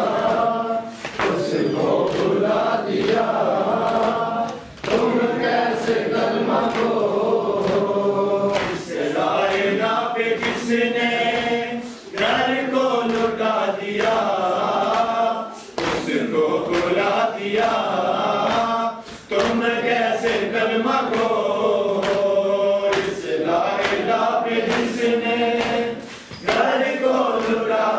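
A group of men chanting a Muharram mourning lament (noha) in unison, in repeated phrases a few seconds long, with the sharp rhythmic slaps of hands beating on chests (matam) keeping time.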